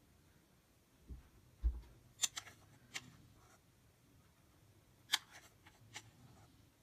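A plastic spoon tapping and clicking against a doll's mouth and a plastic bowl: a few light, sharp clicks, with two soft low thumps just before them.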